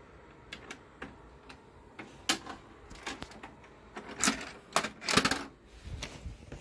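A series of irregular clicks and knocks from handling and moving about, a dozen or so short sharp sounds, the loudest between about four and five and a half seconds in.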